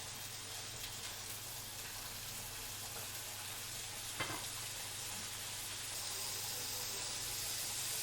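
Steaks searing in a pan of hot oil on high heat: a steady sizzle, with one brief sharp tick about four seconds in.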